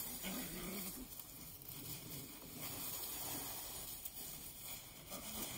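Eight-week-old puppies romping in dry leaves: a faint, steady rustling and scuffling.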